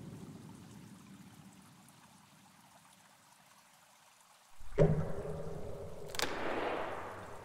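A low sound fades to near silence, then about halfway through water starts suddenly, pouring and trickling over a low hum, and grows louder about a second and a half later.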